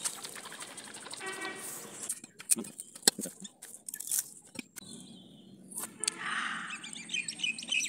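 A curved machete chopping into a coconut: a handful of sharp, separate knocks spread over a few seconds, after rustling in the first two seconds. Birds chirp faintly near the end.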